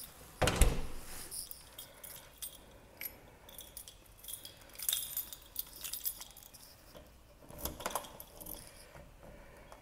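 A loud thud about half a second in, then keys on a keyring jangling and a key clinking and clicking in a brass doorknob lock as it is locked.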